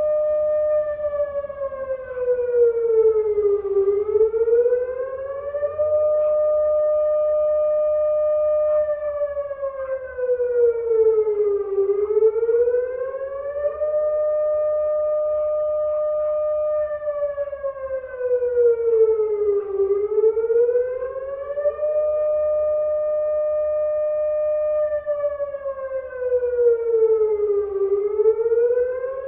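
Air-raid siren sounding: a steady high tone that slides down in pitch and back up again about every eight seconds, dipping four times.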